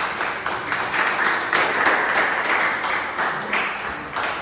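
A small group applauding, many hands clapping densely; the clapping is loudest in the middle and starts to thin out near the end.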